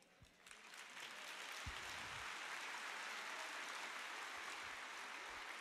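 Audience applauding faintly, building up within the first second and then holding steady.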